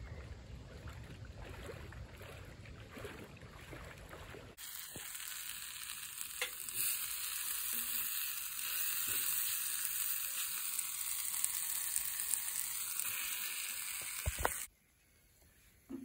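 Diced nectarines frying in a small cast-iron skillet on a wood stove: a steady sizzle with the scrape of a wooden spatula stirring. The sizzle comes in suddenly a few seconds in and stops abruptly near the end. Before it there is a low rumble of wind.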